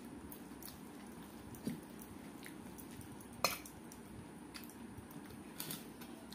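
Hand-eating sounds: fingers mixing rice on a steel plate and picking up cooked greens, heard as scattered soft clicks over a steady low hum. A single sharper click about three and a half seconds in is the loudest.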